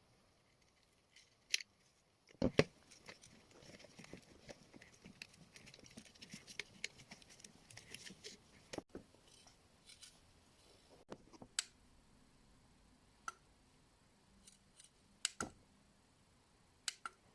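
Unboxing handling noise: a knock about two and a half seconds in, several seconds of crinkly rustling of packaging, then scattered sharp clicks and taps.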